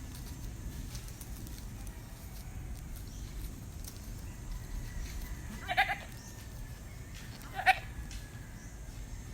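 A goat bleating twice, two short calls about two seconds apart, the second louder.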